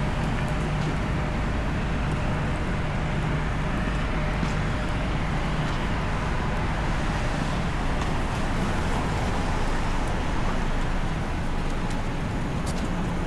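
Downtown street traffic: a steady rumble of vehicles with a low engine hum underneath.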